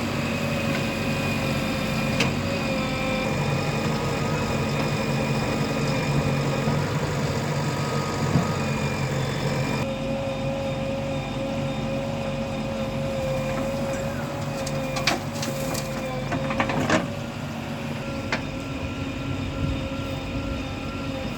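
Diesel engine of a working heavy machine running steadily under load, with a steady whine over it and two sharp knocks in the second half.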